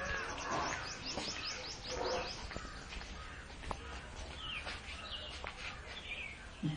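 Birds calling outdoors: a fast run of short, high, falling chirps over the first two seconds, then scattered calls, with crows cawing.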